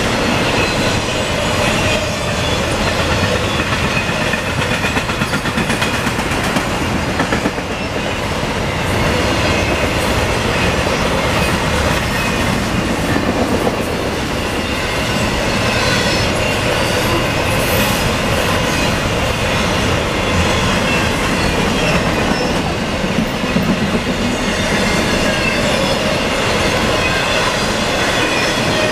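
CSX double-stack intermodal train's container well cars rolling past: a steady loud noise of steel wheels on the rails, with faint high squealing tones from the wheels.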